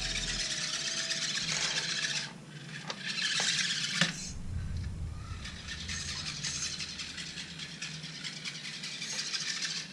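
Small electric drive motor and gears of a 3D-printed 1/32-scale RC car running as it drives about, a high whirring that drops away about two seconds in and picks up again, with one sharp knock about four seconds in.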